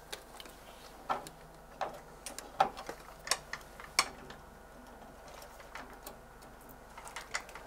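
Scattered light clicks and taps, about a dozen at irregular intervals, from an oscilloscope probe and its leads being handled and clipped onto a function generator's output, over a faint steady hum.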